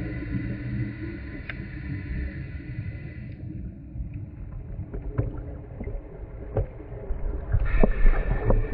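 Muffled underwater ambience picked up by a GoPro in its waterproof housing: a steady low rumble with scattered sharp clicks from about four seconds in.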